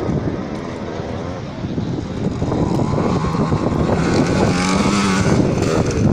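85cc two-stroke motocross bikes racing on a dirt track, engine pitch rising and falling as the riders work the throttle, louder from about halfway through. Spectators' voices are mixed in.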